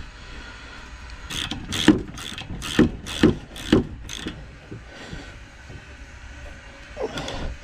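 Hand ratchet wrench clicking through about seven quick strokes, tightening a rear shock absorber mounting bolt, with one more short ratcheting stroke near the end.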